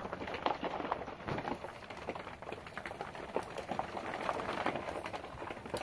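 Heavy rain pattering on the hut's roof: a steady, dense patter full of small ticks.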